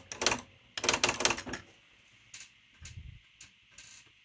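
Smith Corona Spell Right III XD 8000 electric daisy-wheel typewriter typing: a quick run of sharp print-hammer clicks, then a few more spaced out, with a duller low knock about three seconds in. The ribbon cartridge is left out, so the strikes print nothing.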